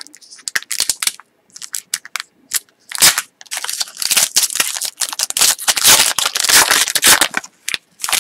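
Foil wrapper of an Artifacts hockey card pack crinkling and tearing as it is ripped open by hand, in irregular crackly bursts, loudest about three seconds in and again around six to seven seconds in.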